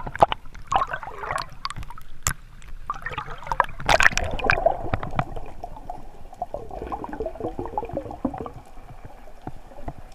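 Water gurgling and bubbling close to a mask-mounted camera as a swimmer moves through the sea, in irregular bubbly bursts with scattered sharp clicks; the loudest stretch is about four seconds in.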